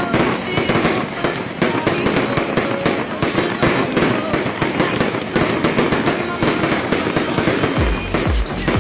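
Fireworks going off in a dense run of crackles and bangs, with people's voices underneath. Near the end, music with a pulsing bass beat comes in.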